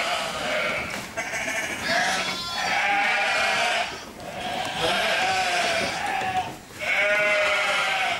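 Sheep bleating over and over: about five long, wavering calls, one after another with short breaks.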